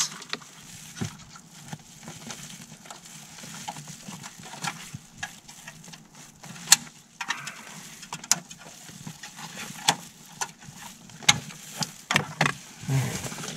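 Scattered plastic clicks and knocks with light rustling as wiring-harness connectors are pried and unclipped from the back of a car's factory head unit with a small screwdriver. The sharpest click comes about halfway through.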